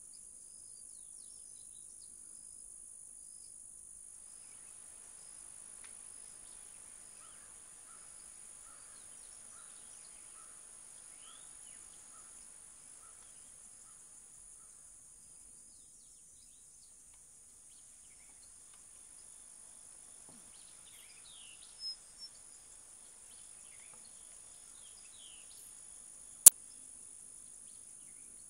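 Steady high-pitched insect chorus, with scattered bird calls: a short note repeated about every half second in the middle, and a few quick falling chirps later on. A single sharp click stands out near the end.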